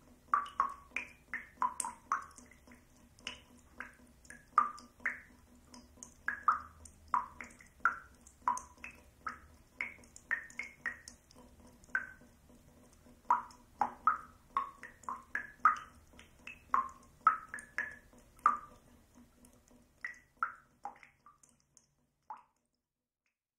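Water dripping from a faucet: irregular drops, about one to two a second, each a short pitched drip. The dripping stops a little before the end.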